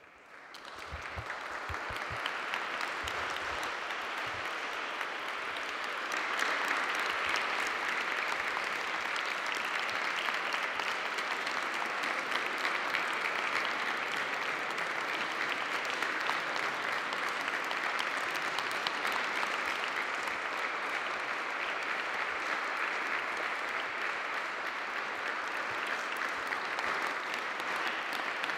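Audience applauding: the clapping starts up and swells over the first few seconds, then holds steady.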